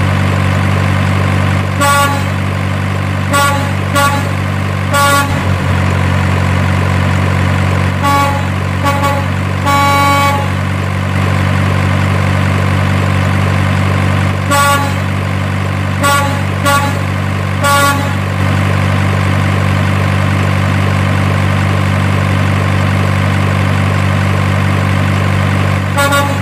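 Truck engine sound effect running at a steady, unchanging drone, with about a dozen short horn toots laid over it, some in quick pairs, mostly in the first two-thirds and once more near the end.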